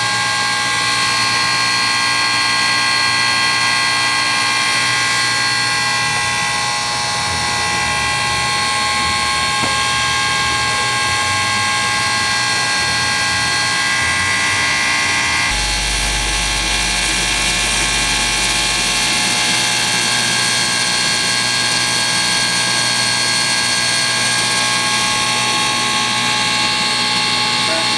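A 1913 ALCO 0-4-0 steam locomotive standing under steam, giving a steady loud hiss with a constant whine of several tones. A low rumble joins for a few seconds about halfway through.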